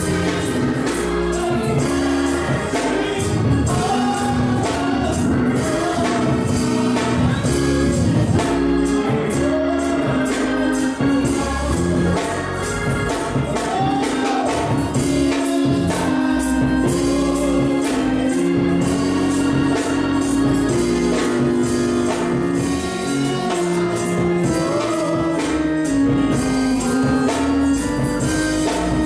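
Live gospel music: a woman singing into a microphone over a drum kit and a steady tambourine rhythm, with held chords underneath.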